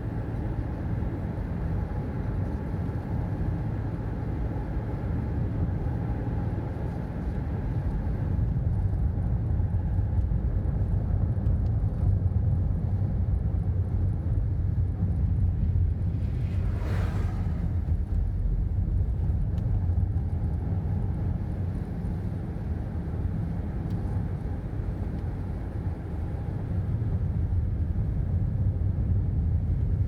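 Steady low rumble of tyres and engine heard from inside a moving car's cabin. A little past halfway, an oncoming SUV swishes past.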